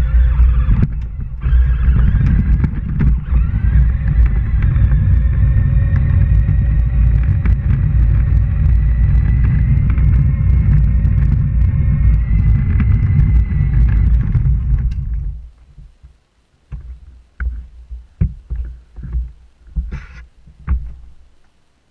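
Electric ride-on toy tractor driving, its plastic wheels and body rumbling loudly with a faint whine from the drive, picked up through the toy's body. The drive stops about fifteen seconds in, followed by scattered knocks and bumps on the plastic as the rider moves about and climbs off.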